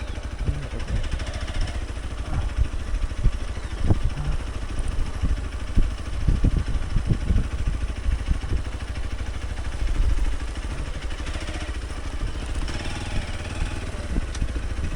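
Hero Xpulse 200 Pro's single-cylinder engine running while the bike is ridden over a rough off-road track, with frequent knocks and rattles.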